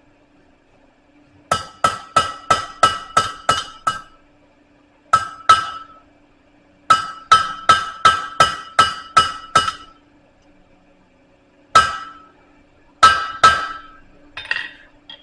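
Hammer blows on steel over a blacksmith's anvil, each strike ringing out: a run of about seven quick blows, two more, a run of about eight, then a few single strikes near the end.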